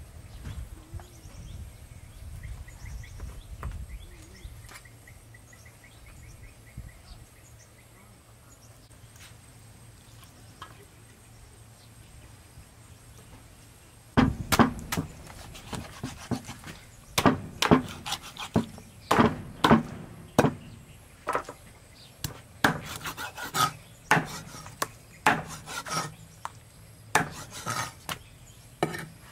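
Cleaver chopping turtle meat on a round wooden chopping block: sharp, irregular chops that start about halfway through and come several a second. Before the chopping there is only faint handling and some light chirping.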